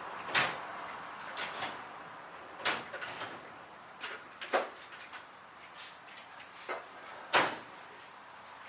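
Scattered clicks and knocks of a metal straightedge or square being set against and moved along a miter saw's fence and turntable, with two louder knocks about half a second in and near the end.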